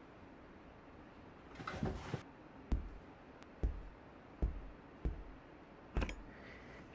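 A brief rustle, then five footsteps, evenly paced at a little under one a second.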